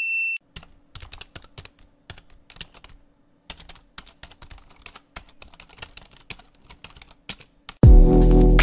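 Fast, irregular clicking of keys being typed on a keyboard for about seven seconds, after a high ding that fades just after the start. Loud music cuts in near the end.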